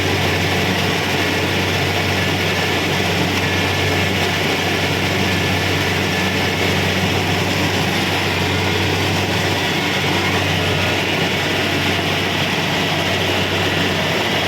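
Kubota DC-70 Pro combine harvester's diesel engine and machinery running steadily while it works, a constant deep hum under an even mechanical whirr.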